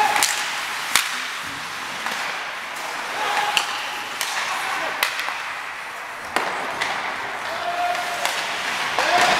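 Ice hockey play: several sharp clacks of sticks and puck over the steady scrape and hiss of skates on the ice.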